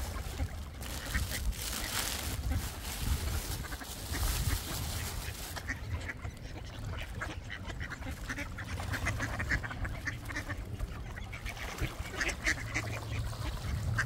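A group of ducks quacking repeatedly as they crowd in to be fed, with a steady low rumble underneath.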